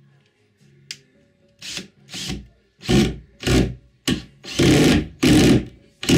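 Ryobi R18DD3-220S cordless drill/driver running in a series of short bursts, about two a second, getting louder as they go.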